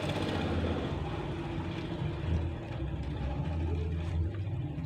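Low, steady engine rumble of a motor vehicle, its higher hiss fading after about two seconds.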